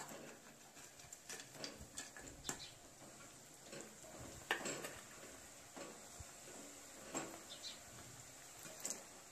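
Wire mesh spider skimmer clinking and scraping against a metal wok while stirring potato pieces in hot oil during their second fry, over a faint sizzle of the oil. The clinks are short and irregular, a few seconds apart.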